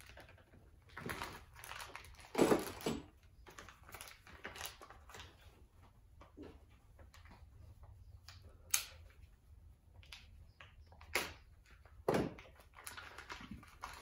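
Plastic hardware bags rustling and crinkling as small parts are handled on a workbench, with a few sharp clicks of parts being set down.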